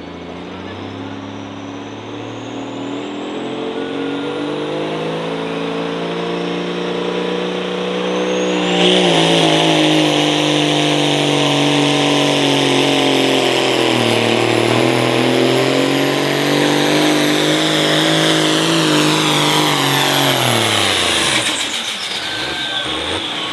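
Turbocharged diesel engine of a pulling tractor making a pull: engine note and a high whine rise together, reach full throttle about nine seconds in and run hard with a brief dip in pitch midway, then the throttle is cut and the engine and whine wind down near the end.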